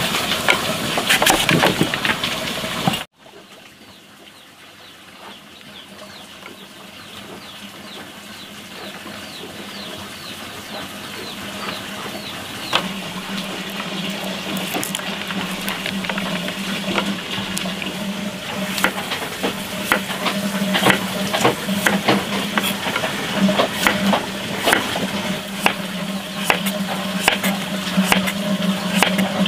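A cleaver working a green papaya on a wooden chopping board: the blade scraping out the seeds, then slicing the flesh thin, with many sharp taps of the blade on the board. The sound drops suddenly about three seconds in, then builds back up, and the taps come thicker near the end.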